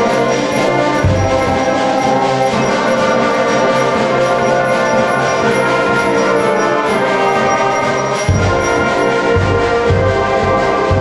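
A middle school concert band of woodwinds, brass and percussion playing sustained chords. Deep bass notes come in about a second in and again after about eight seconds.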